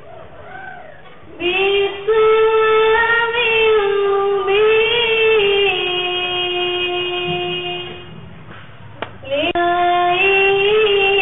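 A young woman's solo voice singing long, ornamented held notes into a microphone. There are two long phrases, with a brief pause and a single click about nine seconds in.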